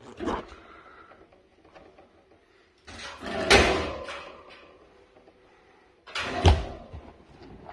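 Knocks and rattles of an overhead hanging grip obstacle as a child grabs it and swings on it: a short knock at the start, a longer rattle about halfway that is the loudest, and another knock near the end.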